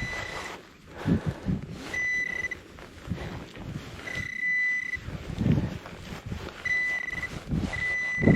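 Metal-detecting pinpointer probe sounding a steady high-pitched beep in about five separate stretches of half a second to a second, as it is moved over a buried metal target in the hole. Between the beeps there is rustling and scraping of soil being dug.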